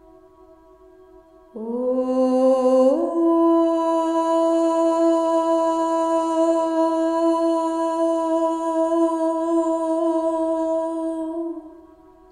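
A woman's voice toning one long wordless note: it comes in about a second and a half in, slides up to a higher pitch about three seconds in, and is held steady until it stops near the end. Underneath is a soft steady drone of held ringing tones.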